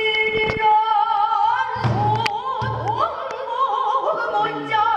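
A woman singing pansori in Korean, holding long notes with a wide wavering vibrato and sliding between pitches, in a sorrowful farewell passage. A few short sharp knocks sound under the singing.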